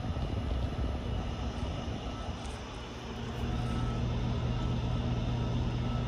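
Mitsubishi ductless mini-split indoor unit running in heating mode, its blower giving a steady rush of air. A low steady hum comes in about halfway through.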